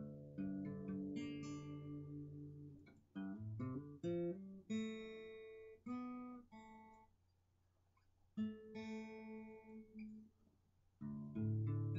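Steel-string acoustic guitar played unaccompanied: chords strummed and left to ring out, with a quick run of single notes about three seconds in and two short pauses in the second half.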